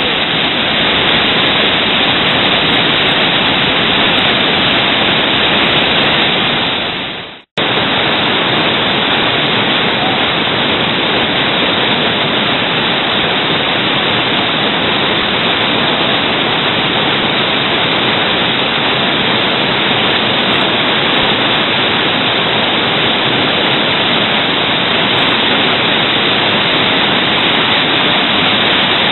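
Big whitewater rapids rushing, a loud, steady noise of heavy water. About seven seconds in it fades out and drops away for a moment, then comes straight back at full strength.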